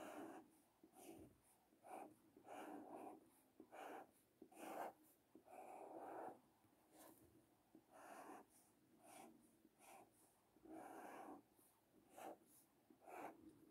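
Faint strokes of a felt-tip marker on paper as Chinese characters are written: short scratchy strokes at an irregular pace, some quick and a few drawn out for about a second.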